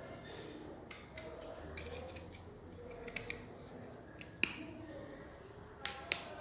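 Thin plastic phone case being pressed and snapped onto an iPhone 4: scattered faint clicks and scrapes of plastic on the phone, the sharpest about four and a half seconds in and a couple more near the end.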